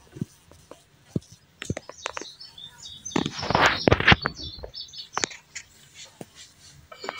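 Handling noise from a phone being moved while filming: scattered sharp clicks and knocks, and a louder rustling burst about three to four and a half seconds in. Faint bird chirps sound in the background.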